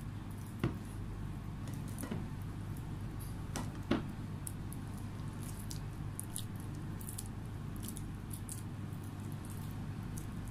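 Soft, faint squishing of oiled hands pressing and rolling sticky mashed plantain dough, with a few light taps in the first few seconds, over a steady low hum.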